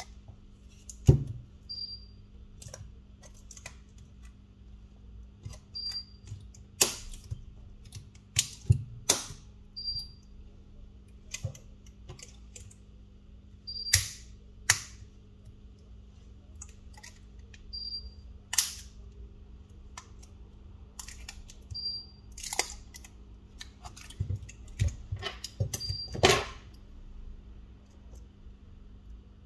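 Irregular sharp clicks and taps of small hand tools and phone parts being handled during a smartphone teardown, over a steady low hum. A short high beep repeats about every four seconds.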